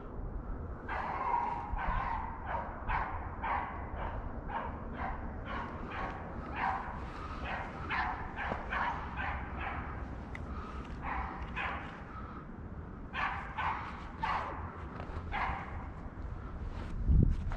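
A beagle baying steadily, about two barks a second with a short pause about two-thirds of the way through, as a hound gives tongue while running a rabbit's scent trail.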